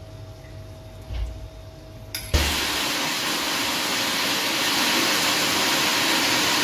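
Electric mixer grinder starting about two seconds in and running at full speed, a loud steady whir as it grinds whole black pepper, cumin and fennel seeds to powder. Before it starts there is a low thump and a click.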